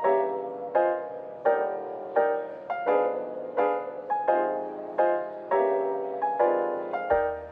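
Background music: a piano-like keyboard playing repeated chords, each struck and fading, about one every three-quarters of a second. A low bass line comes in near the end.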